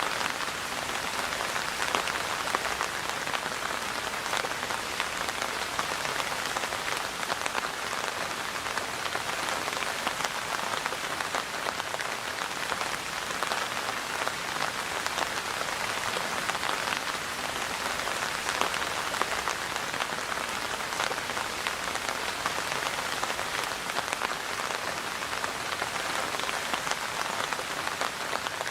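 Steady rainfall, a dense even hiss of many drops striking a surface, with fine individual drop ticks throughout.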